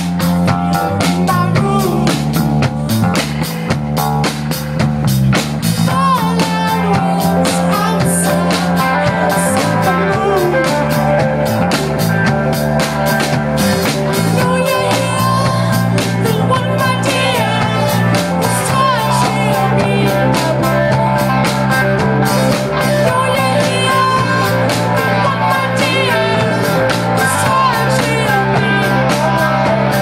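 A live rock band playing: electric guitars, keyboard and drum kit over a steady beat, with low held notes that shift every few seconds.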